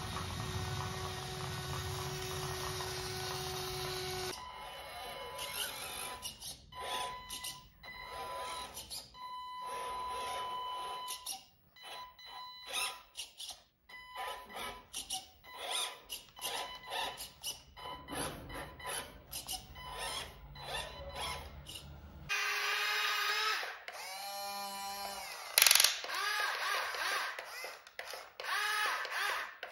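Small electric motors whining, rising and falling in pitch, among clicks and gear clatter, the sound of toy radio-controlled vehicles working.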